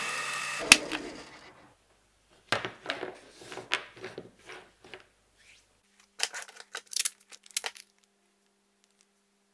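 A benchtop drill press runs with a steady whine, then is switched off with a sharp click under a second in and winds down. This is followed by light knocks and taps of a steel knife blade and a wooden handle being handled on a cutting mat. Near the end comes a quick run of crackling clicks as tape is pulled off its roll.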